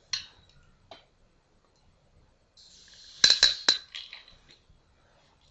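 A 40-ounce glass malt liquor bottle being handled: a few faint clicks, then a short hiss and three sharp clinks of glass close together about three seconds in.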